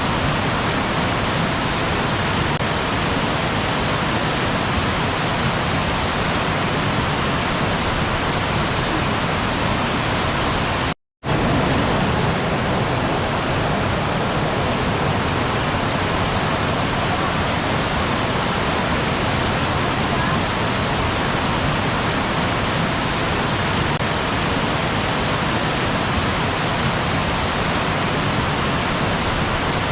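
Steady rush of a waterfall, cutting out to silence for a moment about eleven seconds in, then resuming.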